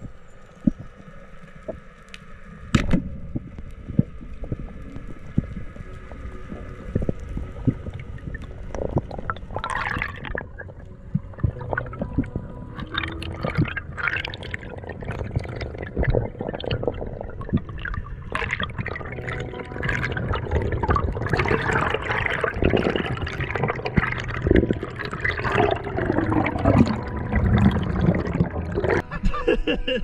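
Underwater sound through a GoPro's housing: a muffled wash of water with many scattered clicks and crackles, growing louder and busier with bubbling and gurgling in the second half.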